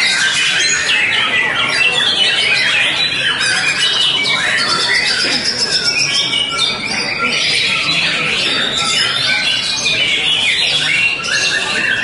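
White-rumped shama (murai batu) singing a continuous, rapid stream of varied whistles and quick notes, with a long, slightly rising high whistle about five seconds in.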